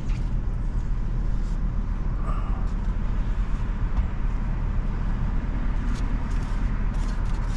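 Steady low rumble of a car heard from inside the cabin, the engine running.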